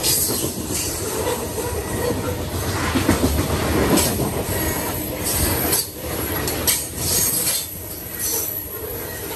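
Covered grain hopper cars of a freight train rushing past at high speed close to the track: steel wheels rumbling over the rails, with short bursts of high-pitched wheel noise every second or so.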